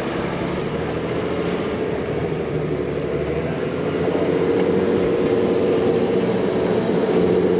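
A vehicle engine running with a steady drone that gets louder about halfway through.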